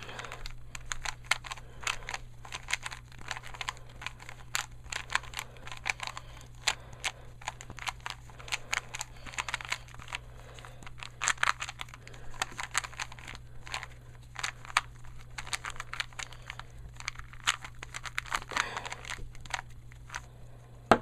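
A 3x3x3 Rubik's Cube being scrambled by hand: a rapid, irregular run of plastic clicks and clacks as its faces are turned.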